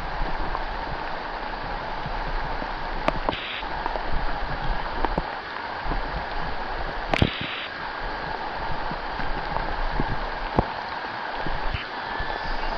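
River flowing: a steady rushing of water, with scattered sharp clicks and two short high-pitched sounds, about three and seven seconds in.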